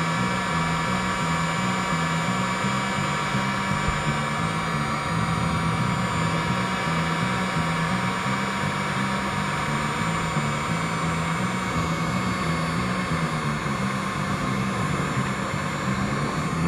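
Heat gun running steadily, its fan blowing hot air with an even hum and whine, heating the plastic hull of a kayak to weld over a hole.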